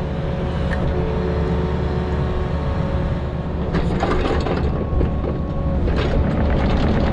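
Excavator working, its diesel engine running steadily with a low hum. A few sharp knocks and scrapes from the machine about four seconds in and again near the end.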